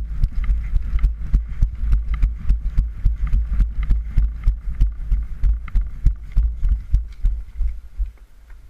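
Running footsteps with gear jostling, heard through a body-worn camera: quick, even thumps over a deep rumble from the microphone being shaken, fading out near the end as the runner stops.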